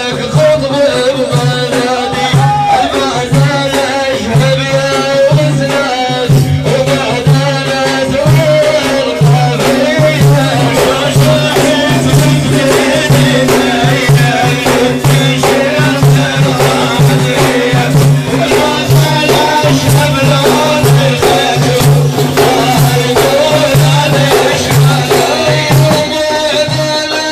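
Sufi dhikr chanting: a lead voice sings a wavering melodic line over a group's low, pulsing rhythmic chant. Dense, fast frame-drum strikes with a jingling rattle run throughout.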